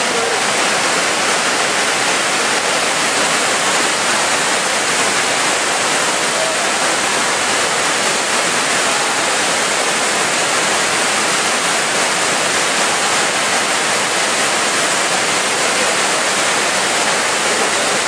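Large waterfall: heavy water pouring over rock ledges and churning at the base, a steady, even rush of noise with no breaks.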